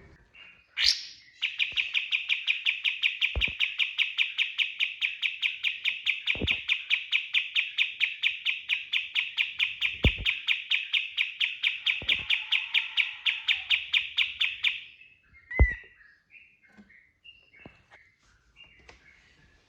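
Kapas tembak songbird singing its 'tembakan' burst: a long, rapid run of the same sharp note repeated about five times a second for some thirteen seconds, then scattered short chirps. A few soft knocks sound during the run, with a sharper one just after it ends.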